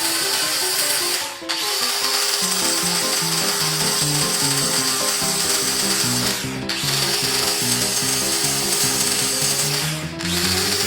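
A power tool running steadily with a loud, hissing sound, stopping briefly about one and a half seconds in, again around six and a half seconds, and again near the end, over background music with a stepping melody.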